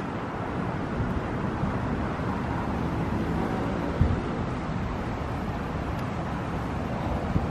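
Wind buffeting the microphone outdoors, a steady rumbling noise, with a single short knock about four seconds in.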